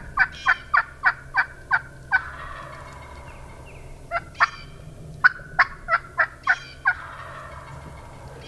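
Wild turkey calling: two runs of loud, sharp yelps at about three a second, each run trailing off into a rattling, rolling note about a second long.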